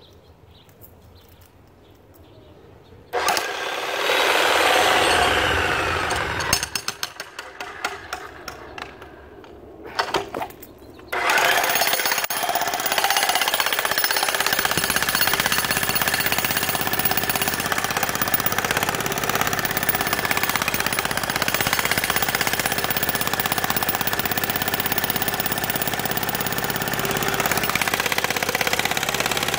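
Electric jackhammer breaking up a concrete footing. After about three seconds of quiet it starts, runs in short stop-and-start bursts for several seconds, then hammers steadily from about eleven seconds in.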